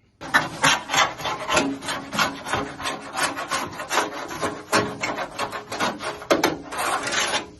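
Rapid, irregular hand scraping strokes, several a second and fairly loud, on crusty, corroded bodywork.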